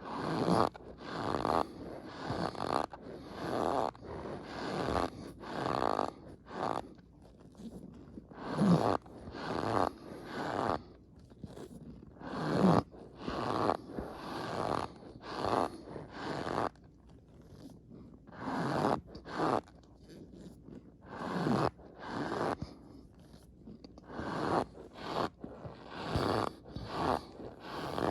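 Close-miked fast, messy chewing with the mouth stuffed full of food, giving squeaky, wet chomps in irregular bursts of roughly one to two a second.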